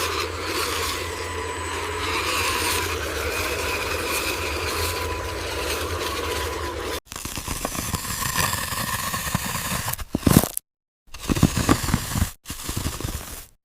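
Radio-controlled construction truck working: a steady low motor hum under a rough scraping, crunching noise of material being moved. About seven seconds in it cuts off abruptly, and after that the same kind of noise comes in short choppy bursts broken by hard dropouts, one a brief total silence.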